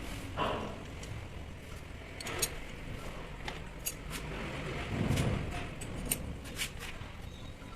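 Scattered light metallic clicks and clinks of tools and parts being handled during the disassembly of a rotary hammer, with a duller thump about five seconds in, over a steady background hum.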